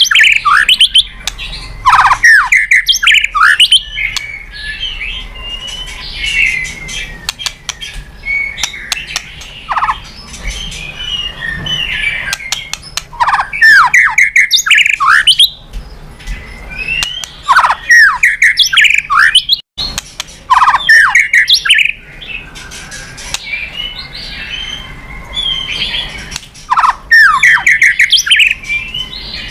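White-rumped shama (murai batu) singing: loud bursts of varied, quickly sliding whistles and harsh notes every few seconds, with quieter twittering between the bursts.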